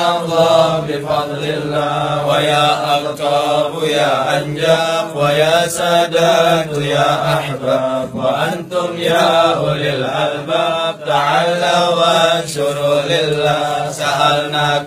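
Arabic devotional chanting of a qasida: voices sing a slow, drawn-out melody with long held notes.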